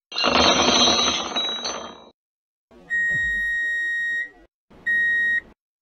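A loud, dense clattering rattle for about two seconds, then an electronic beep: a steady high tone held for over a second, and after a short gap a second, shorter beep of the same pitch.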